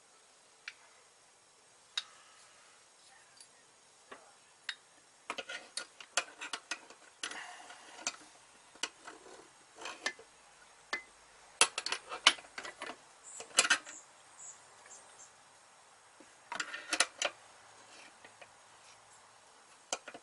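Scattered light metallic clicks and taps, coming in short clusters, as a brake hard line is shaped by hand and fitted at the master cylinder, the tubing and fittings knocking against the metal around them.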